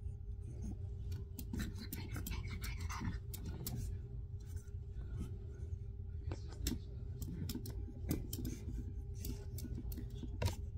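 A pug licking and nibbling at its paw: irregular small wet clicks and scratchy ticks, over a steady low hum.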